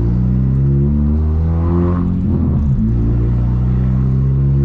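1999 VW Gol G2's 1.0 8V four-cylinder engine pulling through a loud HKS 4-inch sport exhaust, rising in pitch, with a brief break about two seconds in where the pitch drops, as in a gear change, before it pulls again.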